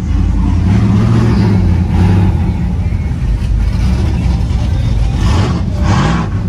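Pickup truck engines running low and steady, with a short rising rev and bursts of engine noise about five to six seconds in.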